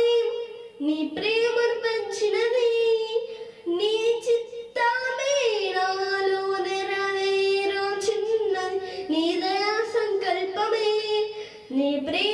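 A young girl singing a Telugu Christian song unaccompanied into a handheld microphone, in long phrases with sustained notes and short breaths between them.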